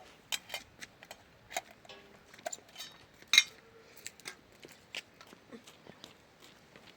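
Small stones clicking and knocking together as they are handled and set down: an irregular series of sharp taps, with one louder knock about three and a half seconds in.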